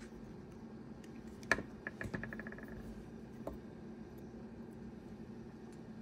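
A sharp click, then a run of quick clicks that come faster and faster and die away, as a small hard object drops and bounces to rest on a tabletop. A fainter click follows, over a steady low hum.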